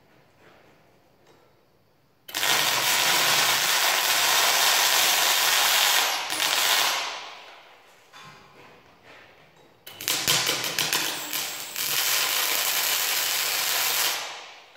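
MIG welding arc crackling on a steel beam in two runs: the first starts about two seconds in and trails off after about four seconds; the second begins with a few sputtering starts, then runs steady and stops just before the end.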